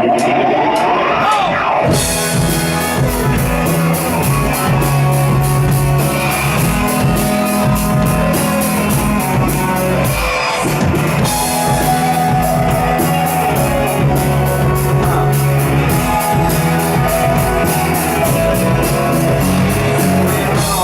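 Live rock band playing the instrumental intro of a song: a rising note over the first two seconds, then drums, bass and guitar come in together, with a short break about ten seconds in before the band carries on.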